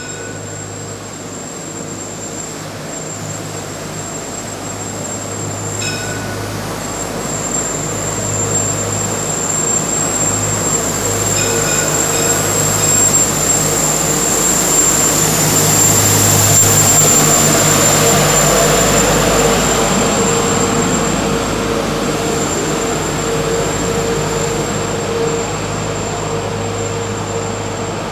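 Tram running along the street: a steady low hum and rumble that swells to a peak about halfway through and then fades, with a few brief high beeps in the first half.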